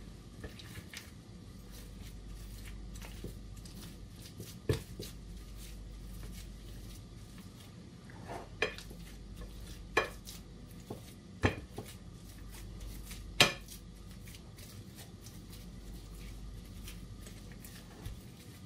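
Potato masher working boiled potatoes in a glass bowl, with about five sharp knocks of the masher against the glass, spaced a second or two apart.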